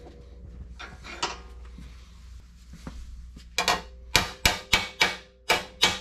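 Body hammer tapping a sheet-steel flange clamped in a bench vise, straightening an edge that curved during the bend. A few faint knocks come first. From a little past halfway there is a quick run of about eight sharp metallic taps, roughly three a second, each leaving a short ringing note.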